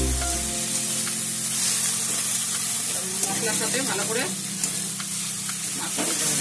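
Bombay duck fish and onion-tomato masala sizzling in a metal kadai while a metal spatula stirs and scrapes through it, with a couple of sharp taps of the spatula against the pan.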